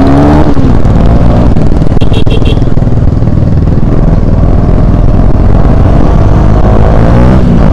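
KTM Duke 250's single-cylinder engine running hard under acceleration, its note rising near the start and again near the end as the revs climb, over heavy wind rush on the microphone.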